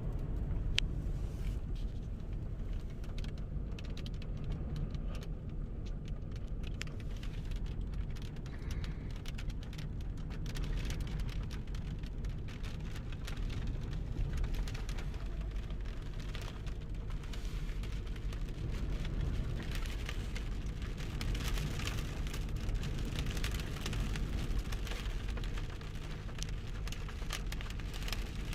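Strong gusting wind rumbling against the microphone, with a dense crackling patter of small hits that thickens about ten seconds in.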